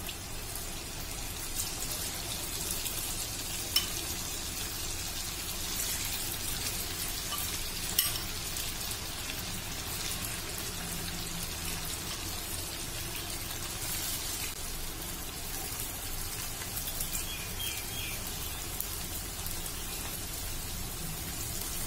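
Batter-coated soya chunks deep-frying in hot oil in a kadai: a steady, crackling sizzle. Two sharp clicks stand out, about four and about eight seconds in.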